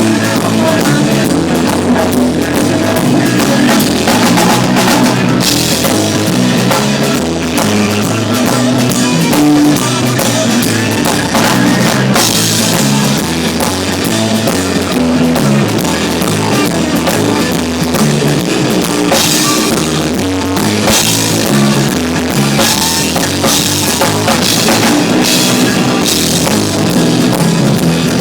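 Live rock band playing through a PA, with drum kit, cymbals and electric guitar.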